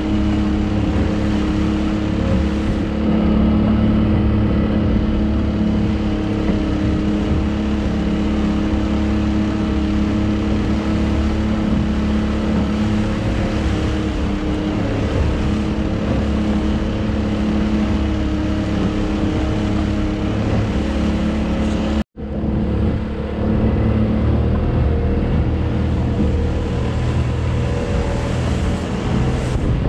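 Small motorboat's outboard motor running steadily at speed, a constant engine drone over the rush of water from the wake. The sound cuts out for an instant about two-thirds of the way through, then carries on.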